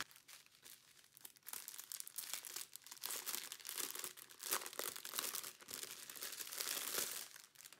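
Clear plastic packaging holding sealed packets of round diamond-painting drills crinkling faintly and irregularly as it is turned over in the hands, starting about a second in.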